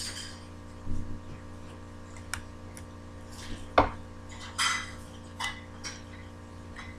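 Hands handling and bending small craft parts: scattered clicks, taps and brief rustles, with one sharp click about four seconds in, over a steady low hum.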